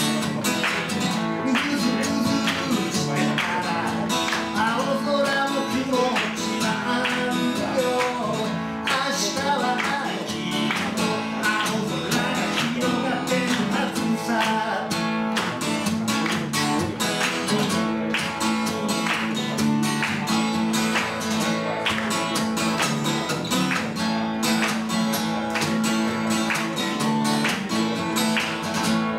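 Acoustic guitar strummed steadily and at a fairly even loudness, with a wavering melody line running over the chords.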